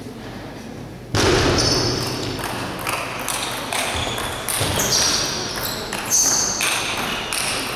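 A table tennis rally: the celluloid ball clicks off the bats and table in quick succession, and rubber-soled shoes squeak briefly on the court floor over a hall full of murmuring spectators. The play grows much louder suddenly about a second in.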